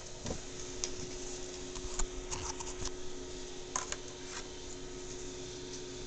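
Scattered clicks and knocks from a webcam being handled and repositioned, with a cluster of quick clicks a couple of seconds in and a few more near the middle, over a steady faint hum.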